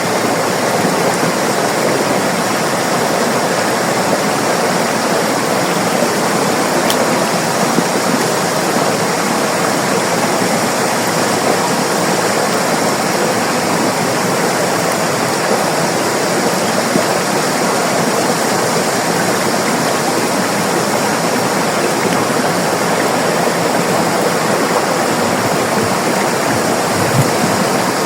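River water rushing and burbling over rocks.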